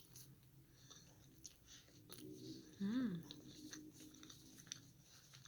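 Faint chewing and biting of a hamburger, with many small wet clicks. A brief hum rises and falls in pitch about three seconds in.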